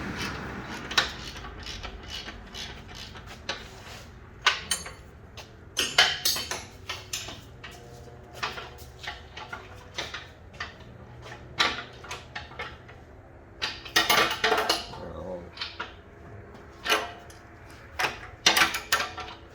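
Steel combination wrench clinking against nuts and the steel mounting plates as the bolts on a snowplow blade's mounting blocks are turned down by hand: irregular sharp metal clinks and taps, with quicker clusters of clinks now and then.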